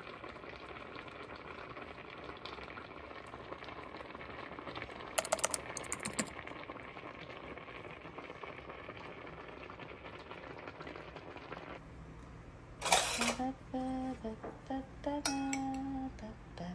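Pasta boiling hard in a small black cast-iron pot, a steady bubbling with a few light clicks partway through. Near the end this gives way to a metal fork clinking against ceramic bowls and plates, with short ringing notes.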